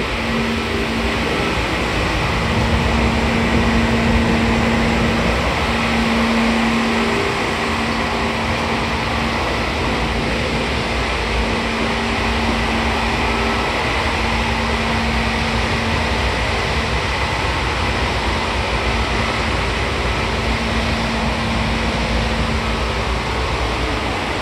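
Seibu 2000 series electric train running at a steady speed: a constant rumble of the wheels on the rails, with a steady low hum that drops out briefly a few times.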